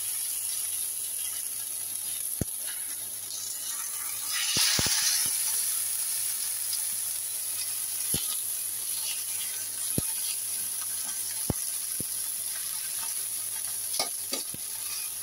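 Mackerel fillets sizzling steadily in a hot pan. The sizzle swells for a moment about four and a half seconds in as a second fillet goes in, and tongs click lightly against the pan now and then.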